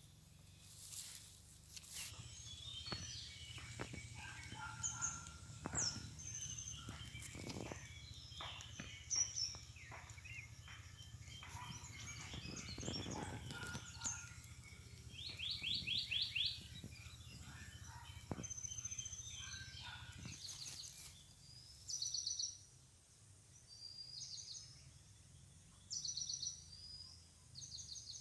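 Several birds calling: short chirps, whistled notes and a fast trill, with a low steady rumble underneath that fades about two-thirds of the way through.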